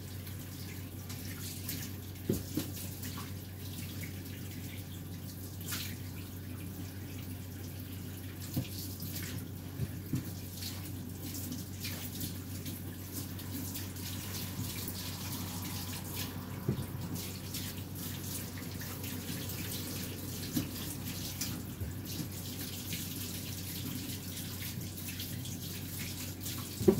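Tap water running steadily into a sink, with a few short light knocks in the sink now and then.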